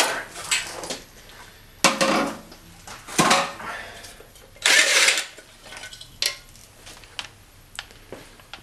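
Metal clanks, knocks and scrapes as a steel exhaust manifold with its catalytic converter is pulled off the engine block and handled: a handful of separate hits spread out, the longest a scraping rattle about five seconds in.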